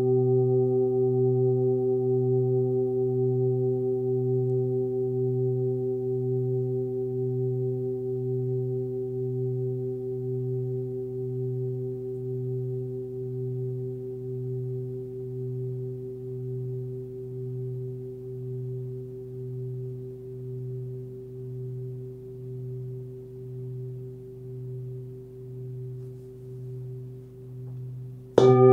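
A 28 cm hand-forged Tibetan singing bowl tuned to about 126 Hz (the note B) rings on after a strike. Its deep fundamental and several higher overtones waver in a slow beat as they die away. Near the end the bowl is struck again with a mallet and rings out loudly.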